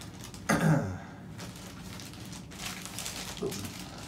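A man's short, low vocal noise, falling in pitch, about half a second in, then faint rustling and light clicks of plastic as graded comic slabs and bubble wrap are handled.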